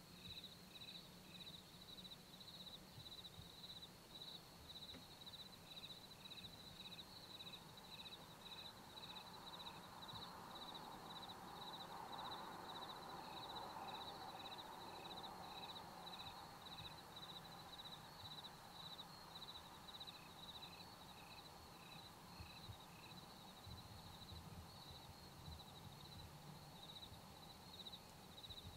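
Insects calling: a steady, fast high trill, with a second insect chirping in runs at about two chirps a second. A soft rushing noise swells in the middle and fades.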